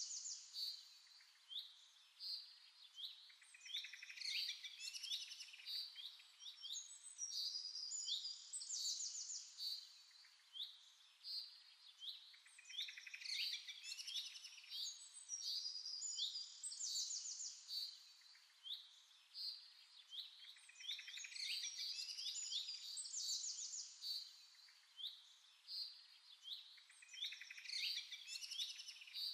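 Birds singing and chirping without pause: rapid runs of short high notes that come in clusters every second or two.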